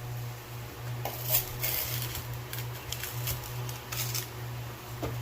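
Faint scraping and shuffling of packed molding sand and the casting flask being handled, with a light click about a second and a half in, over a steady low hum.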